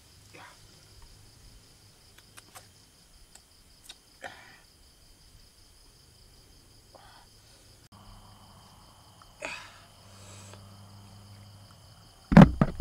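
Night insects, crickets, chirring steadily in high even tones, with a few short scrapes and taps of a spoon scooping chili sauce from a mortar and dabbing it onto snails on a bamboo grill. A loud thump with clicks comes near the end.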